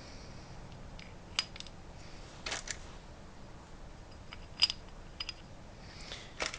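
Light clicks and taps as slider weights are set into the ramp slots of a GY6 scooter's variator, a few separate clicks spread over several seconds.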